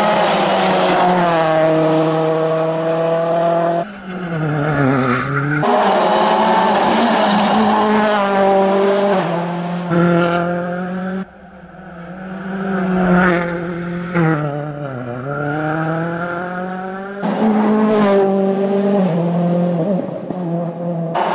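M-Sport Ford Fiesta RS WRC rally car's turbocharged 1.6-litre four-cylinder engine driven hard, revving up through the gears with abrupt gear changes. It lifts off sharply about eleven seconds in, then grows loudest as the car passes, its pitch dipping and climbing again.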